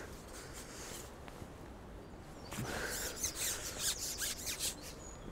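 Soft rustling and small clicks of hands untangling a fishing pole's float rig and line from around the pole tip, starting about halfway through as a run of short handling noises.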